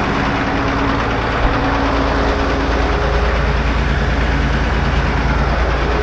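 Motor grader's diesel engine idling steadily, a deep, even rumble.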